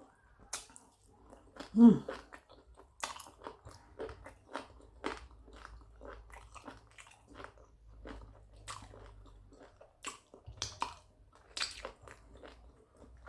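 Close-miked chewing and smacking of a person eating, a run of short wet clicks and crunches. A brief hummed vocal sound about two seconds in is the loudest moment.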